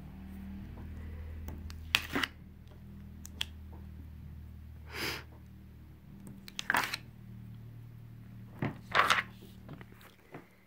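Metal weeding hook picking and scraping at cut heat transfer vinyl on its clear plastic carrier sheet: scattered short clicks and scratchy rustles over a steady low hum.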